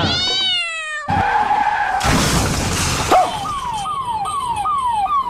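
A string of comedy sound effects for a scooter's sudden swerve. First comes a short rising-and-falling cry like a cat's meow, then a tyre skid screech, then a crash. It ends with a quick run of falling whistle tones, about two a second, like a siren.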